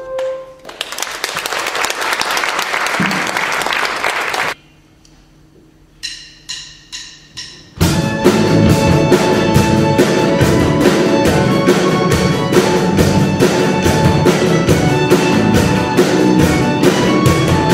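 Audience applause that stops about four and a half seconds in, a short pause, then four evenly spaced count-in hits. A live gospel band then starts a fast song with drums and a steady beat.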